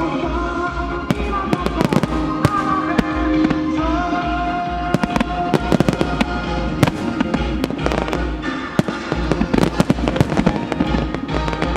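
Aerial firework shells bursting and crackling in quick succession over music that accompanies the display. The bangs come thickest from about 4 s on and again near the end.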